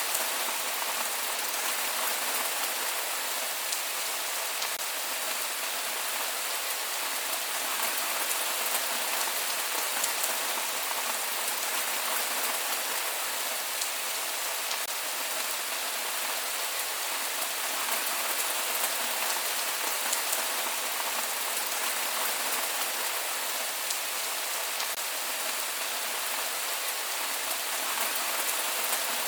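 Steady rain falling and pattering on a surface, an even hiss with fine scattered drop ticks and no thunder.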